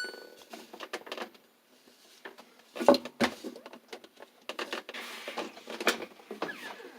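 Drum of an LG WT1501CW direct-drive washing machine being turned and pushed by hand, giving irregular knocks, rubbing and a few short squeaks. The squeak is the machine's fault, which the owner thinks the weight of clothes in the drum brings out.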